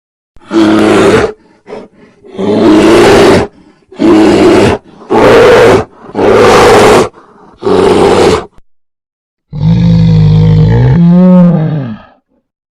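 A wild animal roaring: six rough roars of about a second each, then one longer pitched call that wavers near its end.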